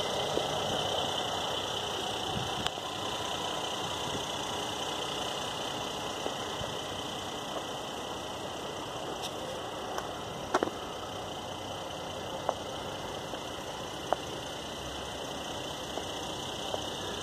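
Steady background hiss with a few faint, sharp clicks.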